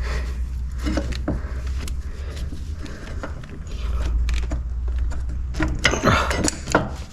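Scattered metal clinks and knocks as a motorcycle rear wheel is twisted and pulled out of the swingarm, with a louder cluster of knocks about six seconds in, over a steady low hum.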